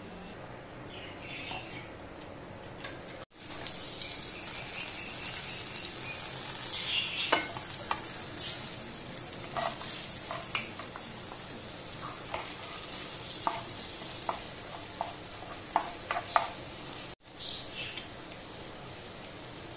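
Chopped garlic sizzling in foaming melted butter in a non-stick frying pan on a low flame: a steady hiss with scattered sharp pops and crackles. It starts abruptly about three seconds in, after only faint background before, and drops briefly near the end before going on more softly.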